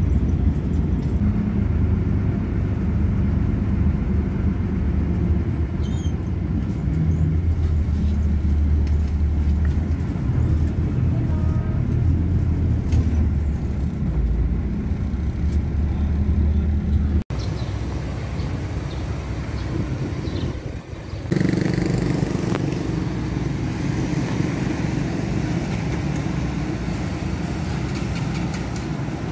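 Steady low drone of a bus engine heard from inside the moving bus. After an abrupt cut about 17 seconds in, street traffic takes over: engines idling and vehicles passing, with a brief dip shortly after the cut.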